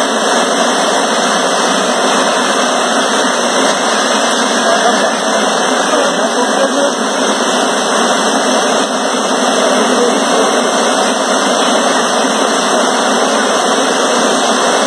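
River in flood rushing through its channel: a loud, steady noise of fast, churning water.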